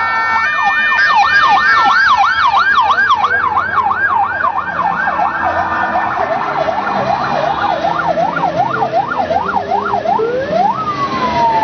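Electronic siren yelping in quick rising-and-falling sweeps, about three a second, slowing to about two a second midway; near the end it switches to a single long wail that rises and then slowly falls.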